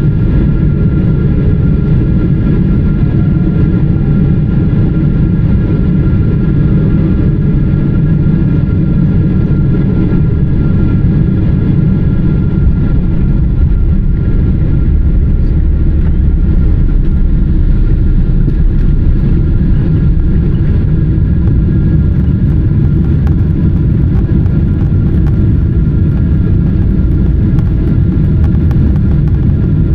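Boeing 777-300ER heard from inside the passenger cabin while landing: a loud, steady rumble of its GE90 engines and rushing air, with several steady whining tones over it. The lowest rumble grows heavier about halfway through.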